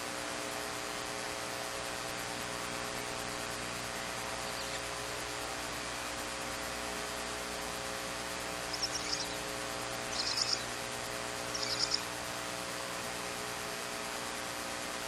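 Newly hatched barn owl chick giving three short, raspy, high-pitched calls in the latter half, over a steady electrical hum and hiss from the nest-box camera's microphone.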